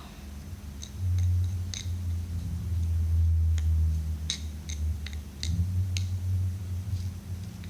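Hands rummaging through dry vacuum-cleaner debris, with scattered small clicks and ticks of bits being moved, over a low rumbling handling noise that starts about a second in.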